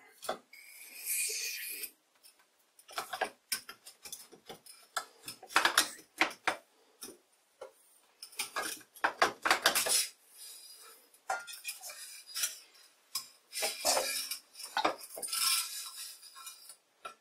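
Irregular metal clinks and knocks, with short scraping stretches, as a car shock absorber is taken apart in a bench vise: its piston rod and inner tube are worked up and drawn out of the outer tube.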